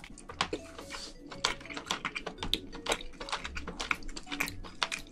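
Close-miked chewing of soft food: a steady run of quick, irregular wet mouth clicks and smacks.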